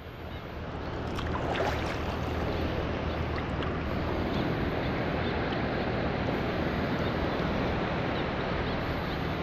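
Steady, even rushing of shallow sea water and wind around someone wading, with no distinct events.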